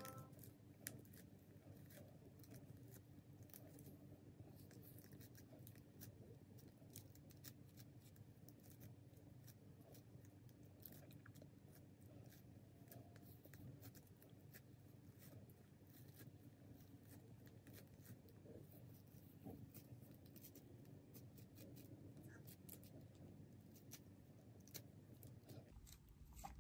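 Faint, irregular scratchy crackling of a flexible detangling brush being dragged through tightly coiled 4C natural hair.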